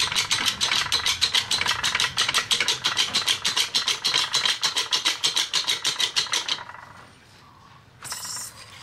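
Hydraulic press pump chattering in a fast, even rhythm of about eight pulses a second as the ram drives the press-brake punch down into the V-die, bending a steel strip. It stops abruptly about six and a half seconds in, and a short burst of hiss follows near the end.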